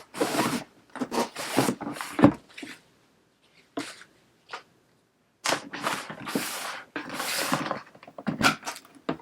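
Paper and cardboard packaging rustling as a gift box is opened by hand, in several bursts with a sharp knock a couple of seconds in, then a few seconds of quiet before the rustling resumes.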